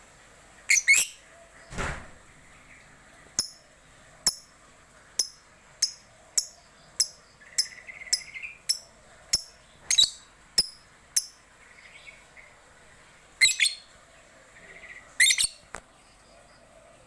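Lovebird calling: short, high, shrill chirps repeated about once a second, with louder clusters of rapid chirps a second in, around ten seconds in and twice near the end. A single thump about two seconds in.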